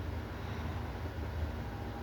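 A person snoring: a low, steady rumble with a hiss over it.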